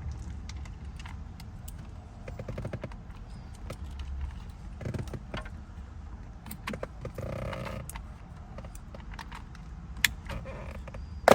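Clicks and metallic clinks of tools and steering-hub parts being handled and fitted, with a quick run of clicks about two seconds in and two sharp, loud clicks near the end.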